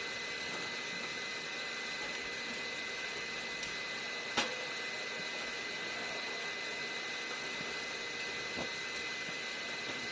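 Steady machine noise with a high, even whine, and a single sharp click about four seconds in.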